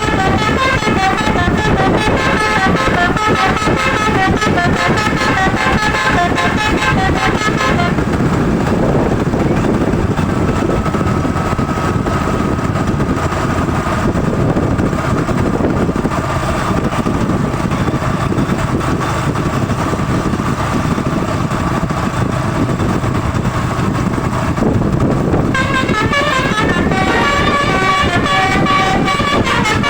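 A bus's multi-tone musical telolet horn (basuri type) playing a stepping melody for about the first eight seconds and again near the end, over steady road and engine noise.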